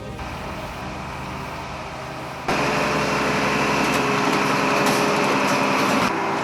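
Heavy-equipment engine running steadily. It gets abruptly louder about two and a half seconds in, and changes sharply again near the end.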